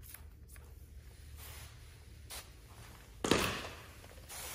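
Trigger spray bottle spritzing slip solution (soapy water) over a car side mirror and its protective film: a short sharp hiss about three seconds in, fading quickly, and a softer spray near the end.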